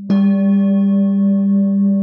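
A singing bowl struck once just after the start, a bright ring of overtones that slowly fades over a steady, deep hum.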